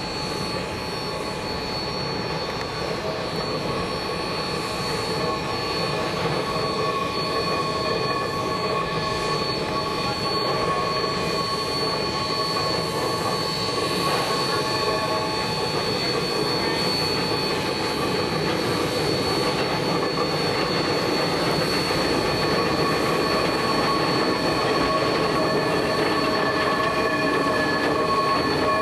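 Coupled geared steam locomotives (Shays and a Climax) running on the rails, with steady high-pitched wheel squeal over the train's noise. The whole sound grows gradually louder.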